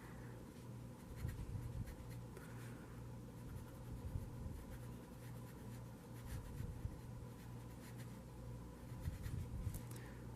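Fine-nib Lamy Safari fountain pen writing on the paper of a pocket Moleskine notebook: faint, irregular scratching of the nib across the page.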